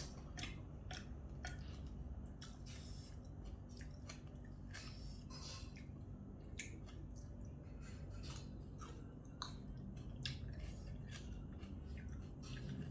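A person chewing a spicy glass-noodle seafood salad close to the microphone, with frequent short wet clicks and smacks of the mouth.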